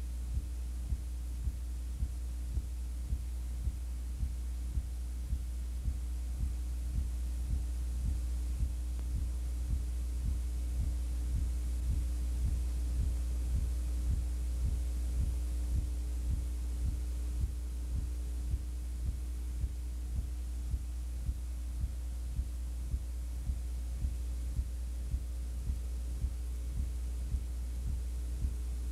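Steady low electrical hum with a soft tick repeating a little more than once a second; no crowd or game sound is heard.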